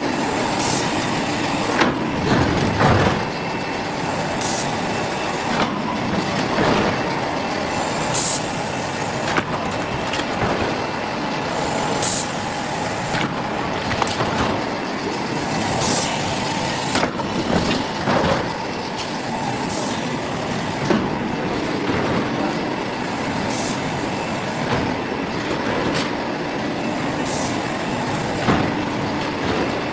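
Automatic plywood hot press line running: a steady machine hum with frequent short hisses and knocks from the moving equipment.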